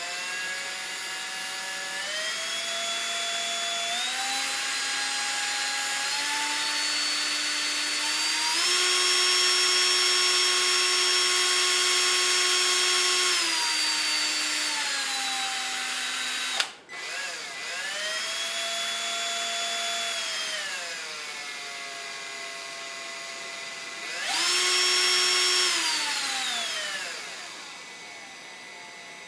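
Milwaukee cordless drill running unloaded, its motor and gearbox whine rising in steps as the trigger is squeezed, holding at top speed, then slowing. It cuts out with a click a little past the middle, then spins up and winds down twice more, the last time to a stop near the end.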